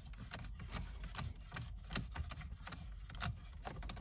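Screwdriver backing a Torx T20 screw out of plastic dashboard console trim, with faint, irregular clicks and small scrapes of the bit and screw.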